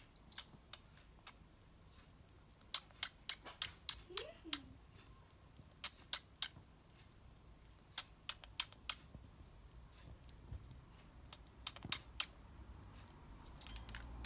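Budgerigar sneezing again and again: short, sharp sneezes in small clusters a few seconds apart, with one brief falling chirp about four seconds in. The sneezing fits are a sign that the bird is ill, unlike its ordinary occasional sneezes.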